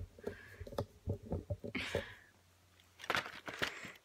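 Light, irregular taps and clicks of small fingers on a cardboard advent calendar, with a brief soft rustle about two seconds in.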